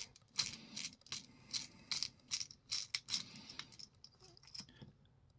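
Light clicks and rattles from a plastic-bodied lockout padlock and its metal parts being handled while it is taken apart, about two or three a second, dying away near the end.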